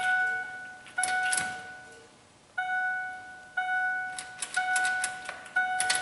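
Dashboard warning chime of a 2006 Ford F-150 with the key on and the driver's door open, one steady tone sounding again about once a second, with a short pause near the middle. A few sharp clicks come about a second in. No fuel pump priming hum is heard beneath it.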